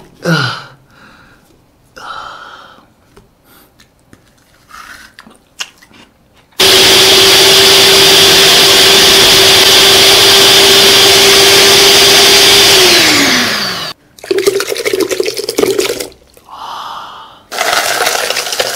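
Countertop electric blender running for about six seconds at a steady pitch, then winding down in pitch as it is switched off. Small knocks and clatter from handling come before and after.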